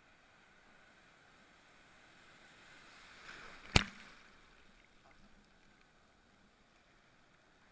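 Shallow surf washing and foaming around waders; the wash swells for a second or two and ends in one sharp, loud hit about halfway through as a wave breaks over the camera.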